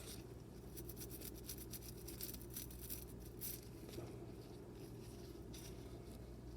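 Faint, quick scrubbing strokes as a small rusty screw wetted with apple cider vinegar is worked clean of rust, coming in a dense run and again near the end, over a low steady hum.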